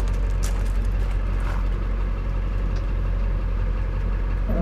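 Pickup truck engine idling with a steady low rumble as the truck backs slowly under a fifth-wheel trailer's pin box toward the hitch.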